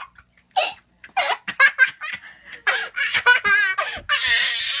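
A young child laughing hard in repeated giggling bursts that run together into an almost continuous fit of laughter after about a second.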